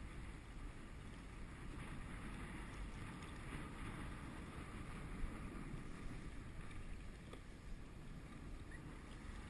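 Steady low rumble of wind on the microphone and sea water lapping around a sit-on-top kayak, with a small knock about five seconds in.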